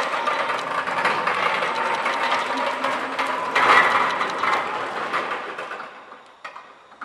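Linde N20 Li electric pallet truck driving over a rough yard surface: a continuous rattling clatter from its wheels and forks, with a faint steady whine. The sound fades as the truck moves away in the last couple of seconds.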